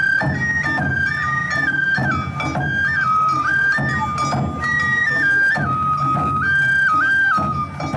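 Awa Odori festival music: a Japanese bamboo flute (shinobue) playing a melody of held, stepping notes over a steady drum beat.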